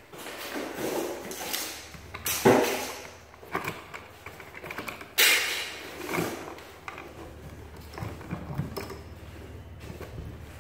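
Hand working inside an electrical box set in drywall: scraping and knocking of wires and box against the wall, with two sharper scrapes about two and a half and five seconds in.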